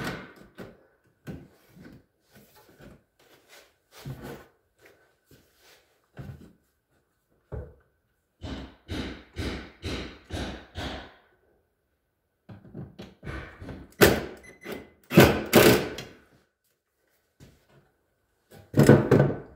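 Knocks and thunks of metal drawer-slide hardware being handled and fastened inside a cabinet, with a cordless drill driving screws in a run of short pulses about ten seconds in. The loudest hard thuds come about 14 to 16 seconds in and again near the end.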